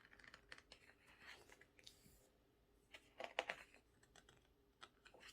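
Faint rustling and small clicks of glossy paper as the pages of a photobook are handled and turned, with a slightly louder rustle of a page turn about three and a half seconds in.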